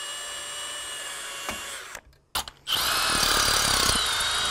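Cordless drill drilling out the steel rivets of a chainsaw bar's nose sprocket. It runs steadily for about two seconds and stops briefly, then starts again louder with a high whine as the bit bites into the rivet.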